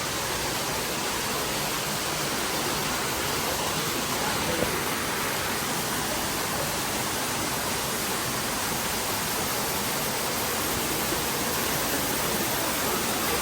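Steady, even rushing of falling water from an exhibit water feature.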